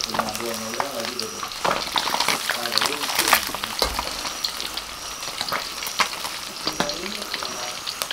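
Small seluang fish deep-frying in a wok of hot oil, sizzling and crackling steadily, while a spatula stirs them and clicks against the wok.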